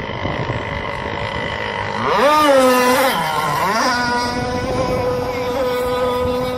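RC speed boat's motor running at high revs with a steady whine. The pitch swoops up, down and up again and is loudest between about two and four seconds in, as the boat turns and throws spray, then holds steady and high.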